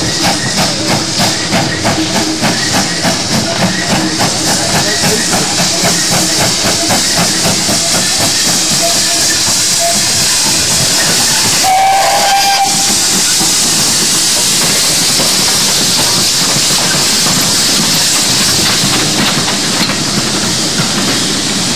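GWR steam locomotive departing with a train: exhaust beats that quicken until they merge into a steady hiss of steam, with a brief high tone about twelve seconds in. Near the end the coaches roll past.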